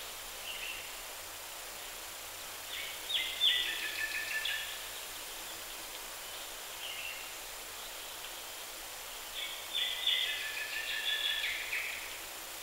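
A songbird singing two short bursts of song, each about two seconds long and about six seconds apart, over a steady hiss.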